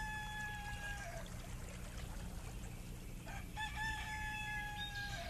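A rooster crowing twice. Each crow has a few short opening notes and then one long held note: the first crow ends about a second in, and the second starts a little past three seconds in. A faint low hum runs underneath.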